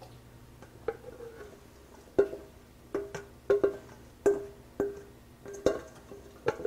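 A spoon knocking against cookware, about ten sharp, ringing taps at an uneven pace, as grated cauliflower rice is scooped and tipped into a pan.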